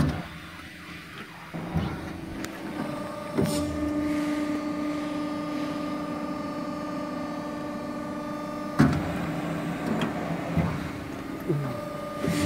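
Hydraulic pump unit of a CNC variable-rake guillotine shear running with a steady hum. The hum drops out for about the first second and a half, then returns and is strongest from about three and a half seconds in. Several sharp mechanical clicks and knocks come through it, the loudest about nine seconds in.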